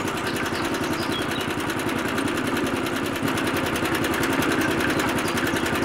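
Small DC motor running steadily, turning the can drum of a miniature toy concrete mixer.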